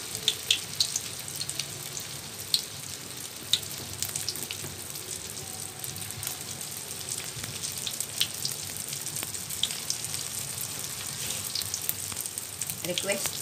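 Vegetable lumpia (spring rolls) deep-frying in hot oil in a wok: a steady sizzle with scattered pops and crackles.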